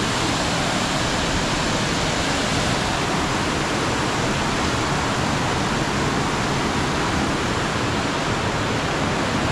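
Raven Cliff Falls pouring down, a loud, steady, even rush of falling water.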